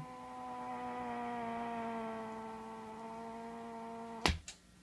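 Mesa Mark V guitar amplifier's channel 3 giving off a steady buzzing hum with a stack of overtones, with no guitar plugged in: a fault in that channel that new tubes have not cured. A loud click a bit past four seconds in, as the amp is switched to channel 2, cuts the hum off.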